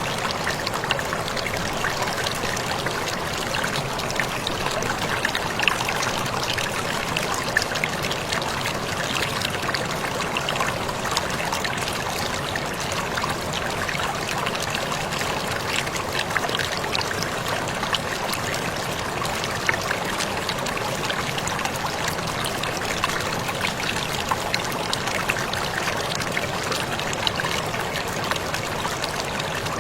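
Waterfall splashing steadily: a constant rush of falling water with many small spattering drops.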